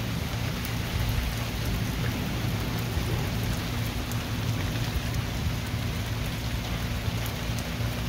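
Steady rain falling on a lawn and a wet wooden deck, an even hiss throughout, with a low uneven rumble underneath.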